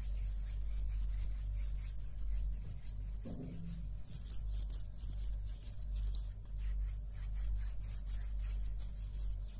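Hands rubbing together and brushing right up against a handheld recorder's microphones, a run of quick swishing strokes over a steady low hum.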